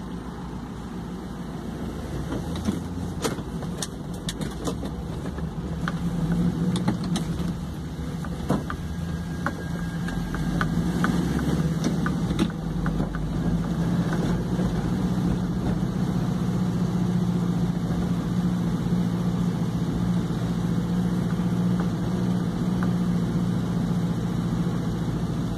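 A vehicle's engine and road noise heard from inside the cab while driving. The engine hum grows louder about six seconds in, as the vehicle moves off and picks up speed, then holds steady, with a few sharp clicks and knocks in the first half.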